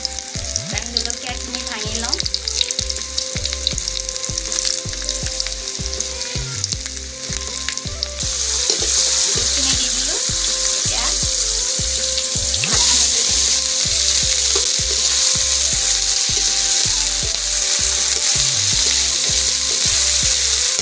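Mustard oil sizzling in a wok as garlic, chickpeas and dried chillies fry, with a metal spatula stirring; the sizzle gets louder about eight seconds in. A low, regular beat runs underneath.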